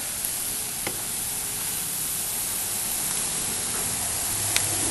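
Chicken breasts in a vinegar-and-oil marinade sizzling on a hot grill, a steady hiss with a few sharp pops, about a second in and near the end.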